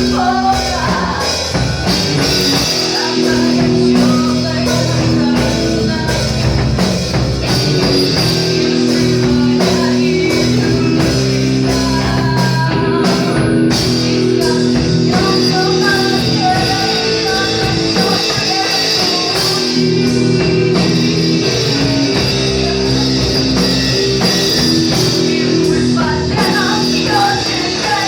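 Rock music with drums, guitar and singing, playing steadily throughout.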